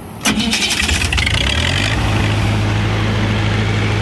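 Lincoln SA-200 welding machine's four-cylinder gasoline engine being started: the starter cranks briefly, the engine catches within about a second and a half, then settles into a steady run.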